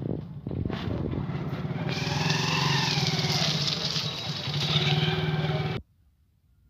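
Motorcycles and a car passing close, engines running. The sound cuts off abruptly near the end.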